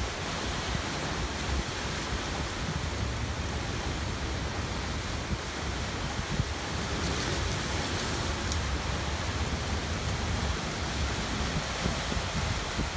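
Hurricane wind and rain making a steady rushing noise, with gusts rumbling low on the microphone.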